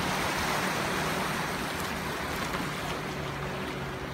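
Waves on a rough sea washing steadily, a continuous rushing noise that swells and eases gently, with a faint low hum underneath.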